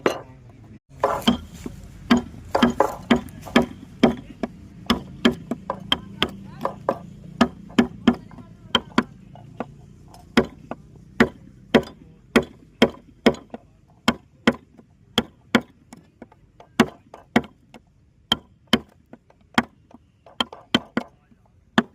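Carving chisel driven into teak wood by steady mallet taps, sharp wooden knocks at about two to three a second.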